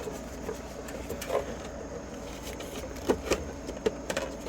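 Dashboard trim and vent ducting being handled and worked loose in a truck cab: scattered light clicks, taps and rattles, with a cluster of sharper knocks about three seconds in.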